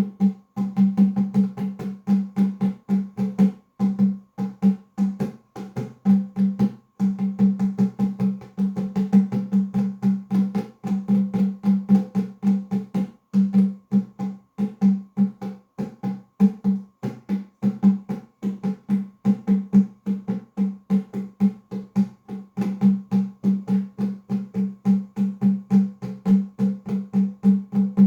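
Nyabinghi drumming: Rastafarian hand drums played in a steady, dense rhythm of many strokes, with a ringing low drum tone under them.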